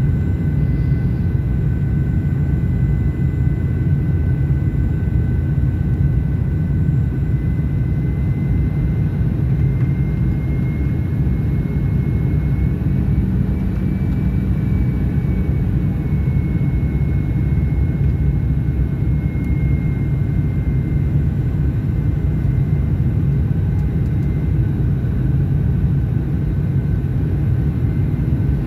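Cabin noise of a Fokker 100 airliner on final approach: a steady low rumble with a steady high engine whine from its rear-mounted Rolls-Royce Tay turbofans, the whine rising slightly around the middle and easing back.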